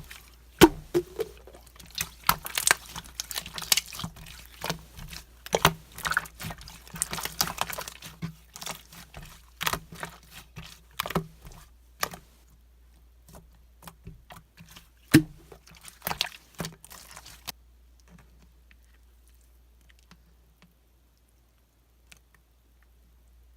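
Green gold-glitter slime being squeezed and pressed by hand: a string of sticky, wet pops and clicks, which stop about 17 seconds in, leaving only faint, scattered ticks.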